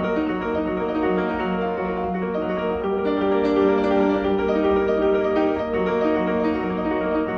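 Background piano music: a steady run of sustained notes.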